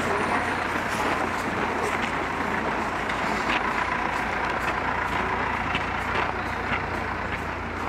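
A large vehicle's engine running steadily, with footsteps crunching on snow about every two-thirds of a second.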